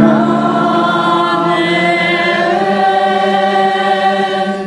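Choir singing the sung Amen that answers the Mass doxology: one long held chord that moves to a new chord about halfway through.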